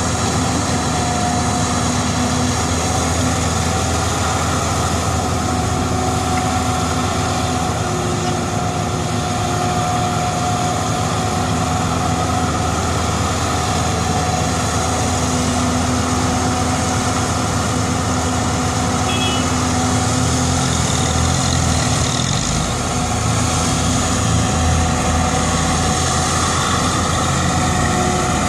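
Caterpillar E120B hydraulic excavator's diesel engine running steadily as it digs and loads earth, its pitch shifting with the hydraulic load. About two-thirds of the way through, a deeper engine sound joins in as the loaded six-wheel dump truck pulls away.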